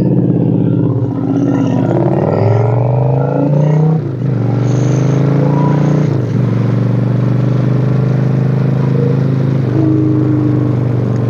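Motorcycle engine accelerating through two upshifts: the pitch climbs and drops back at each shift, about four and six seconds in, then holds steady at cruising speed.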